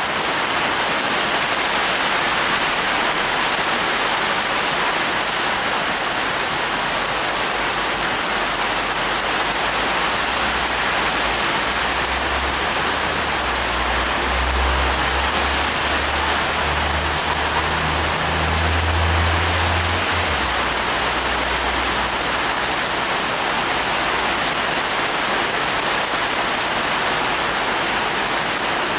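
Heavy rain falling steadily, a dense even hiss. From about ten seconds in until just past twenty a low rumble swells beneath it and then fades.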